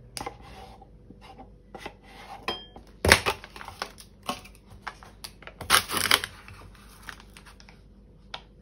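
Kitchen handling sounds of a paper yogurt carton being opened and handled, its paper and flap crinkling and knocking, with a wooden spoon tapping and scraping in a small glass. Short irregular clicks and rustles, with two louder bursts about three and six seconds in.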